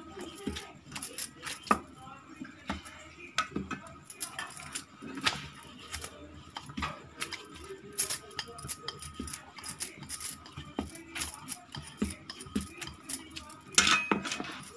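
Rolling pin knocking and clacking on a rolling board as a ball of dough is rolled out: an irregular run of sharp taps, a few a second.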